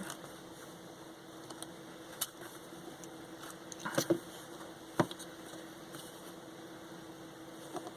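Faint handling noise: a few sharp clicks and taps, about 2, 4 and 5 seconds in, from a headset's plastic parts and cable being worked by hand, over a steady low hum.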